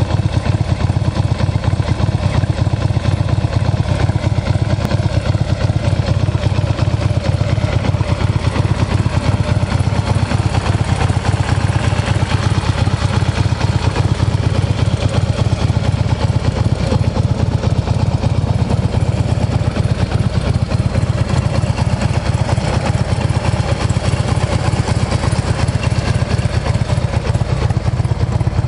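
The air-cooled Twin Cam 110 V-twin of a 2013 Harley-Davidson CVO Road King idling steadily through a Cobra aftermarket exhaust, with no revving.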